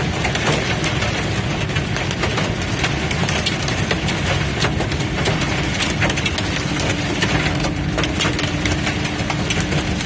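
Heavy rain mixed with small hail pelting the truck's roof and windshield, a dense rattle of many quick hits over the steady noise of the truck driving on a wet road.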